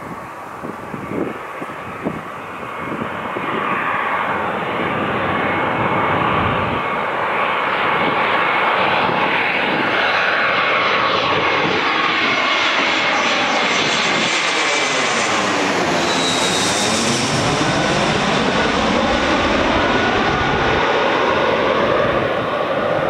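Airbus A320-200 airliner's twin jet engines on landing approach, passing low overhead. The engine noise swells over the first few seconds and then stays loud, with a steady high fan whine and a sweeping, swirling change in tone about two-thirds of the way through as the jet goes over.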